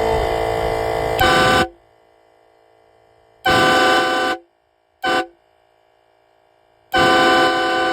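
Train horn blowing loud blasts, each a chord of several steady tones. A long blast stops about a second and a half in, then comes a shorter blast, a brief toot, and another long blast near the end.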